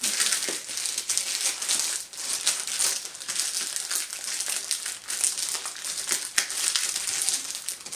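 Clear plastic packaging crinkling and crackling steadily as hands handle and work it open around a boxed cosmetics product.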